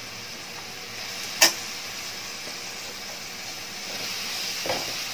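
Sliced onions sizzling in hot oil, with one sharp click about a second and a half in. Near the end a spatula starts stirring, scraping the onions around the pan and the sizzle grows louder.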